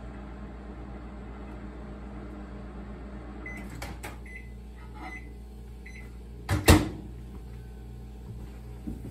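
Microwave oven running with a steady hum, then a few short high beeps and clicks as it is stopped and the door opened, about three and a half seconds in. About two-thirds of the way through, the microwave door shuts with a loud clunk.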